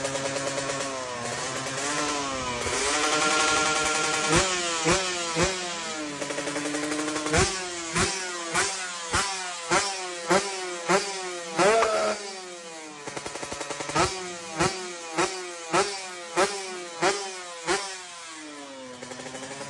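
Drag-race motorcycle engine idling, rising in revs for a moment, then revved in two runs of quick, sharp throttle blips, nearly two a second. Between the runs and at the end it drops back to idle.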